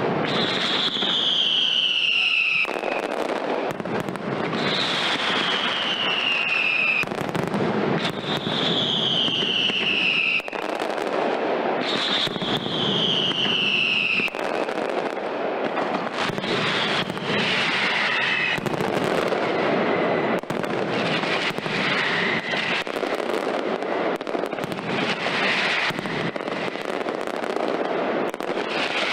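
Mascletà by Pirotecnia Ferrández: a dense, unbroken barrage of firecracker bangs. Through the first half, whistling fireworks shriek and fall in pitch over about two seconds each, one after another. In the second half the bangs crowd together into a continuous barrage.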